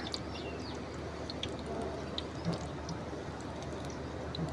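Spoonfuls of chicken pakora batter frying in hot ghee: a steady sizzle with many small scattered crackles.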